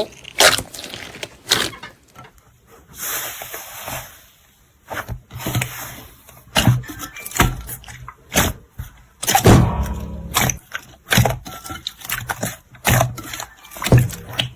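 Slime being squeezed and poked by hand, giving irregular sharp pops and clicks. There is a longer hissy stretch about three seconds in, and the loudest, fuller squish comes near ten seconds in.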